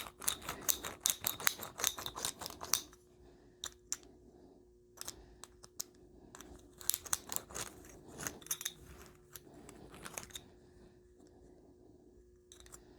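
Copper pipe being deburred with the reamer blade on a tube cutter: quick runs of sharp metal-on-metal scraping clicks as the blade is twisted against the cut edge of the pipe, dense for the first few seconds, then in shorter bursts with pauses.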